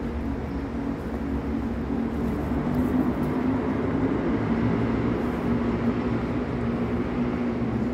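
A steady mechanical drone with a constant low humming tone, running evenly and without breaks.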